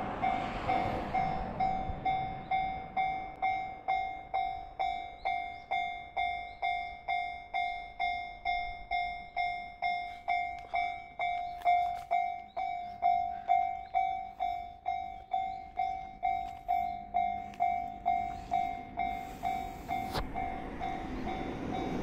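Japanese railway level crossing warning bell ringing steadily, a clear ding struck about twice a second with each stroke dying away. Near the end a low rumble rises under it as the train approaches.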